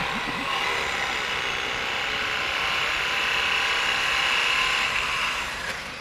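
A handheld power cutting tool running steadily under load as it cuts off old dock fittings at the seawall edge, stopping near the end.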